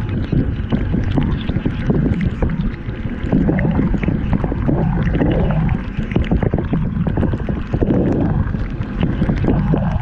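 Dishwasher wash cycle heard from inside the tub: water spraying and sloshing against a GoPro's housing, with a steady low rumble and a dense patter of droplet hits.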